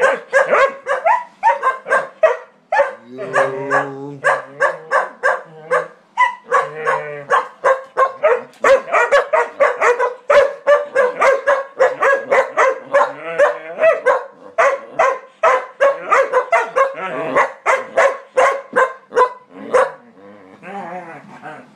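Two Shetland sheepdogs barking in rapid, high-pitched volleys, several barks a second, almost without pause; the barking eases a little near the end.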